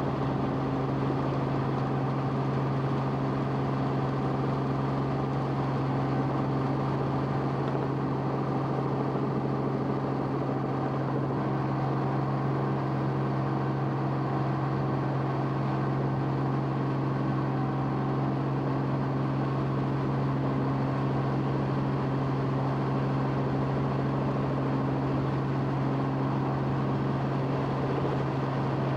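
Steady engine drone of the aircraft that the aerial footage was shot from, one constant low hum with steady overtones and no change in pitch.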